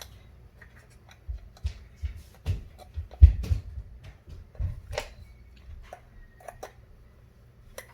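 Irregular plastic clicks and taps with dull knocks as the battery compartment lid of a toy RC car is fitted and screwed shut, the knocks bunched in the first half and loudest about three seconds in.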